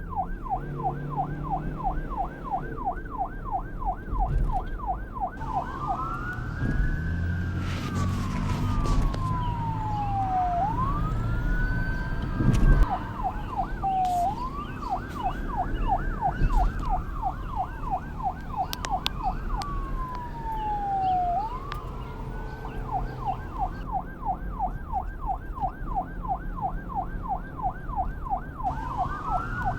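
Police car siren alternating between modes: a fast yelp at first, then a slow wail rising and falling every few seconds, then the fast yelp again near the end, over a low vehicle rumble. A short loud knock sounds about halfway through.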